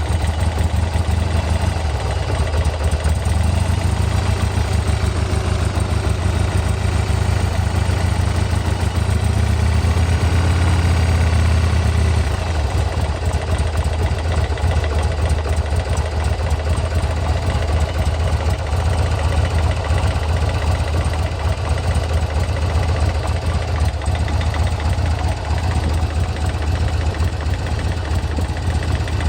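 Buell M2 Cyclone's air-cooled V-twin engine idling, with a mechanical noise from the top end, picking up speed for a few seconds around ten seconds in and then settling back. With the lifters already replaced, the owner cannot judge whether this noise is abnormal.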